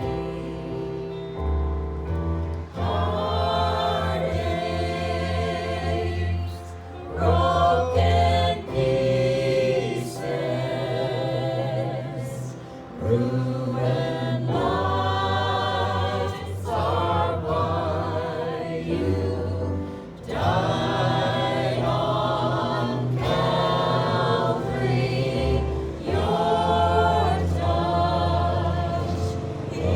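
A choir singing gospel music in phrases of a few seconds, over a sustained low accompaniment.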